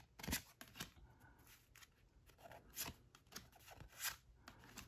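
Tarot cards being handled by hand: faint, irregular flicks and slides of card against card as the cards are moved one by one through the deck.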